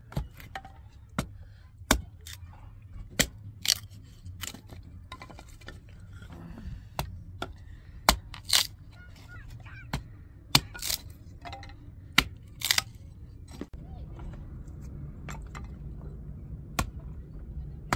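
A small hatchet splitting sticks of firewood by hand: sharp chops and cracks of the wood giving way, at irregular intervals, some in quick pairs.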